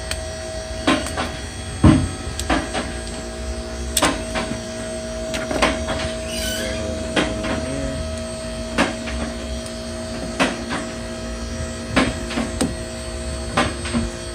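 Scattered clicks and knocks of hand work on a car door's plastic trim and switch parts as pieces are taken out, over a steady background hum. A brief squeak about six seconds in.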